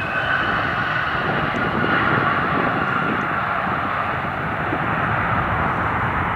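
Bombardier CRJ-900 regional jet's turbofan engines running on the landing rollout: a steady jet rush with a high whine on top.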